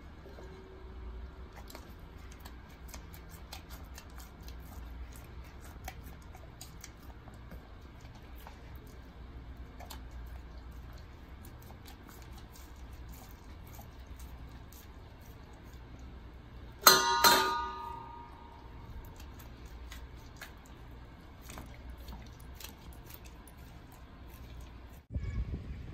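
German shepherd chewing raw chicken, with small wet clicks and crunches of teeth on meat and bone. About two thirds of the way through, the stainless steel bowl is knocked once and rings briefly.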